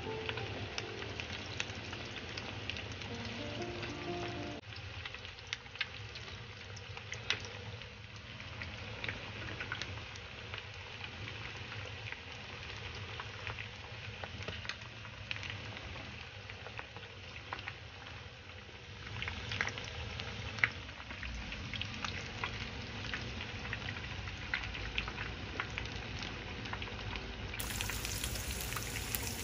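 Starch-coated chicken wings deep-frying in hot oil: a steady crackling sizzle full of small pops. Background music plays over the first few seconds, then stops.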